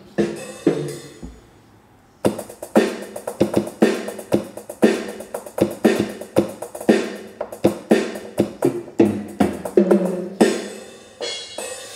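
Casio Casiotone LK-S250 keyboard sounding its Standard Set 1 drum kit, played as a drum beat on the keys: a few hits, a short pause, then a quick run of drum and cymbal hits at about three a second.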